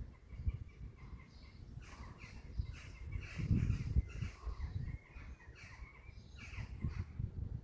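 Birds calling in many short, repeated calls, irregular and overlapping, with intermittent low rumbling underneath.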